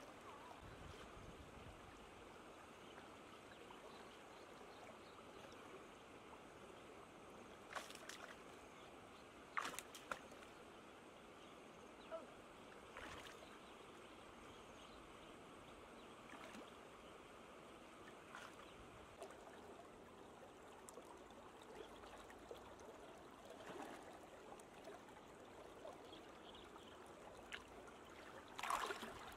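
Quiet, steady water noise from shallow floodwater being waded through, with a few short, sharp splashes; the loudest comes near the end.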